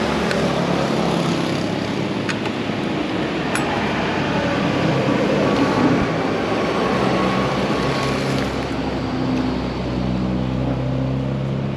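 Steady vehicle engine noise with a low hum that grows stronger in the last few seconds.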